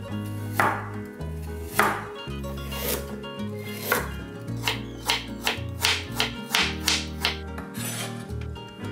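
Chef's knife slicing through a peeled ginger root and striking a bamboo cutting board: a few slow cuts in the first four seconds, then a quicker run of about eight cuts.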